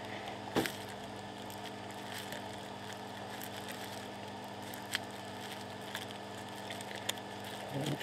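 Steady low hum, with a few faint taps, three in all, of metal tweezers patting solder paste down through a fine-pitch stencil onto the circuit board.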